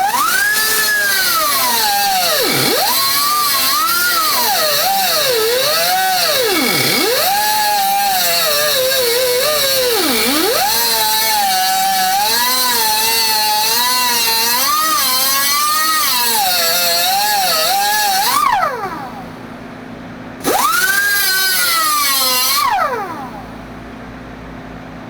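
A small high-speed power tool motor running with a loud whine that swings up and down in pitch, dropping sharply three times, over a hiss. It stops about three-quarters of the way through, then runs briefly once more, its pitch rising and then falling away as it winds down.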